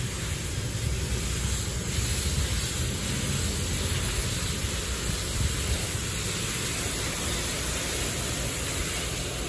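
Washworld Revv touchless car wash spraying a car from its overhead boom arm: a steady hiss of water spray.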